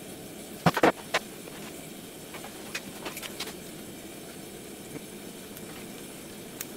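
Small homemade gas forge burner running with a steady rush while the cleaver blade heats for hardening. A few sharp clicks about a second in and lighter ticks around three seconds in.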